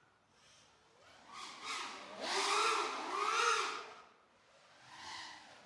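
FPV quadcopter motors revving in a few short throttle bursts, the pitch rising and falling with each burst, with quieter gaps near the start and about four seconds in.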